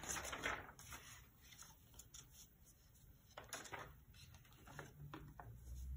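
Faint rustling of a paper sheet being handled and laid over a pillowcase on a heat press, loudest in the first second, then a few brief soft scrapes and taps.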